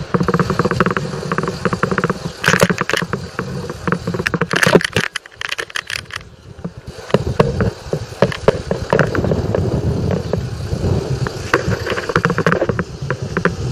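Rattling, clicking and scraping over a low rumble, as from a camera jolting while it is carried along a street. The noise thins out briefly about halfway through.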